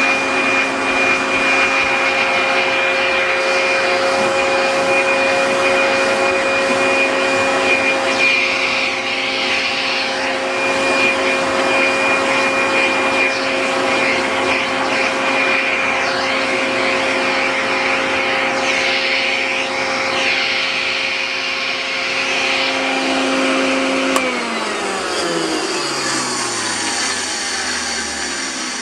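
Hoover Junior 1346A upright vacuum cleaner, made about 1971, running with a steady motor whine. About 24 seconds in it is switched off with a click, and the motor's pitch falls steadily as it runs down.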